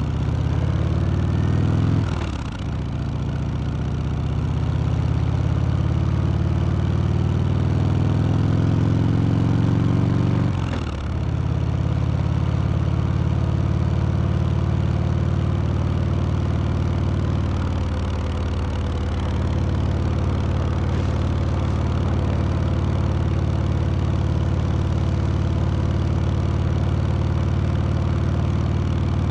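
Harley-Davidson Sport Glide's Milwaukee-Eight V-twin under way: the engine note climbs, drops at an upshift about two seconds in, climbs again, drops at a second shift around eleven seconds, then holds steady at cruising speed.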